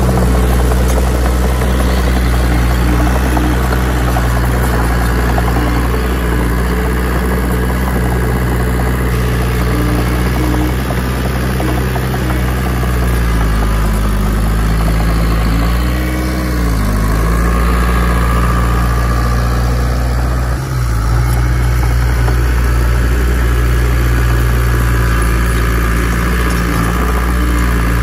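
Heavy diesel earthmoving engine running steadily, its pitch sagging and recovering twice about halfway through as the load changes.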